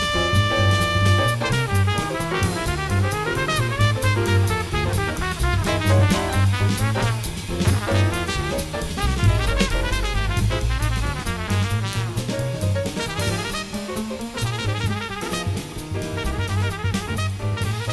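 Background music in a jazzy style with a drum kit keeping a steady beat, a bass line and horns. A held horn note ends about a second in.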